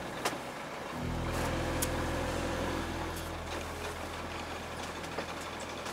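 A sailboat's auxiliary engine idling with a steady low hum during docking. The hum drops out briefly and comes back about a second in, with a couple of light knocks on the hull or fittings.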